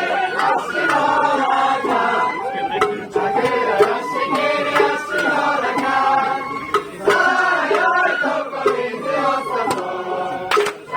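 Sawara bayashi festival music from a float's band, with several voices singing together over the melody.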